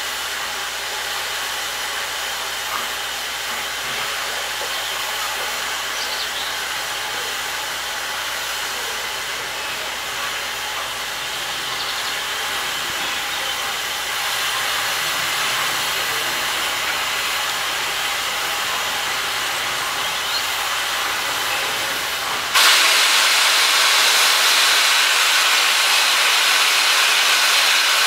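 BR Standard Class 4 4-6-0 steam locomotive 75078 approaching slowly, a steady hiss of steam with no exhaust beats. About 22 seconds in the hiss becomes abruptly louder as the engine draws alongside.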